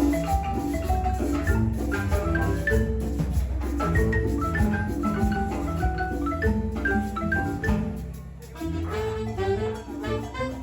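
Marimba music: quick melodic runs of struck notes over a steady bass line, briefly thinning about eight seconds in before carrying on.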